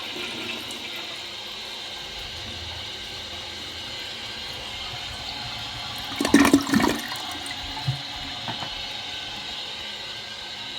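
An elongated 2001 American Standard Plebe toilet flushing: a steady rush of water, with a louder burst of gurgling about six seconds in.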